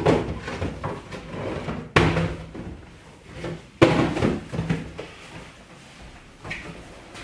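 Things being rummaged and knocked about in a wardrobe: three sharp bangs, at the start, about two seconds in and near four seconds in, each followed by a short clatter.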